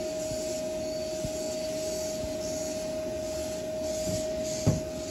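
A vacuum running steadily, with a constant whine, over the crinkling of a plastic trash bag being handled.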